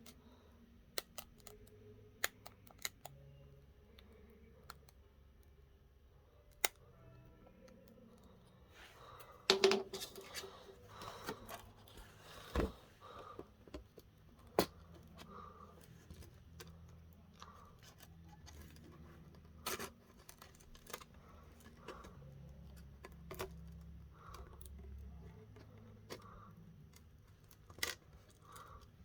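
Faint scattered clicks and taps of small hand tools on a phone during a back-glass repair, with a few seconds of scraping and rustling about ten seconds in.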